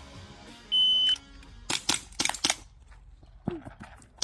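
Shot timer's start beep, one high steady tone lasting under half a second, then a quick string of about five airsoft gun shots firing 6mm BBs, with a couple more shots near the end.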